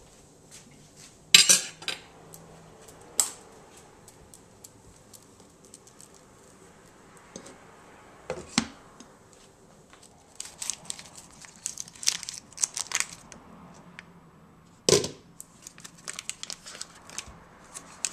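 Stainless steel cookware and a lid being handled, with a few sharp clanks of metal on metal. Paper crinkles in quick clusters through the second half as butter is unwrapped over the pan.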